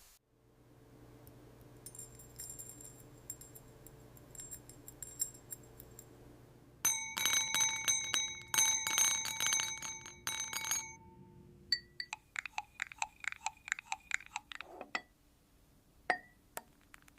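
AI-generated glass clinking and tapping with bright, bell-like ringing. There are light faint ticks over a low hum for the first several seconds. A dense run of loud ringing clinks comes in at about seven seconds and lasts about four seconds, and lighter ringing taps follow.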